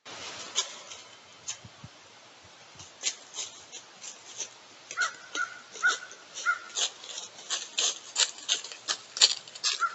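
An animal giving a run of short, high calls at one pitch, a couple each second, starting about halfway through, over many sharp clicks and rustles.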